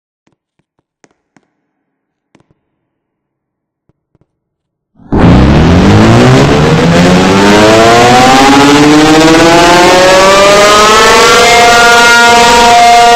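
ACA P-50 siren starting up about five seconds in, very loud: its pitch rises steadily as it winds up and levels off into a steady howl near the end. Before it there is near silence with a few faint clicks.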